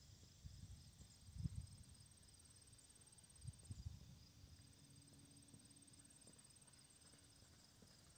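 Near silence with faint, steady high-pitched insect trilling, plus a couple of dull low thumps early and midway.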